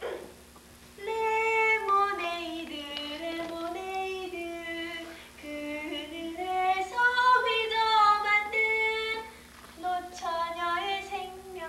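A woman singing a melody with held notes, in a few phrases with short pauses between them.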